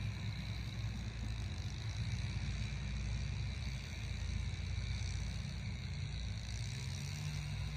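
Steady low outdoor rumble with a faint hiss above it and no distinct events.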